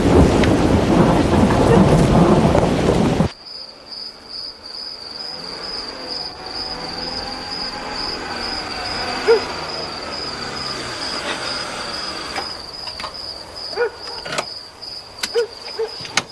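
Heavy rain with rumbling thunder for the first three seconds, cut off abruptly. Then crickets chirp steadily while a car pulls up, and a few sharp clicks follow near the end.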